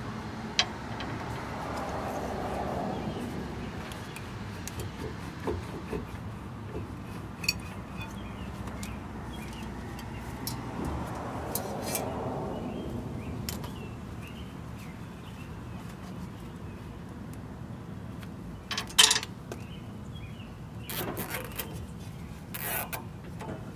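Hand work on a truck's rear disc brake: scattered light metallic clicks and knocks as the brake caliper is lifted off its bracket and hung from the leaf spring with a zip tie, with short louder bursts of clicking near the end.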